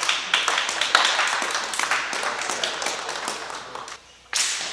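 A group of people clapping, the applause fading out about four seconds in. A single sharp noise comes near the end.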